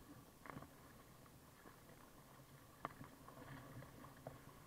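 Faint water splashing around a surf kayak, with two short sharp splashes or knocks, about half a second in and just before three seconds in.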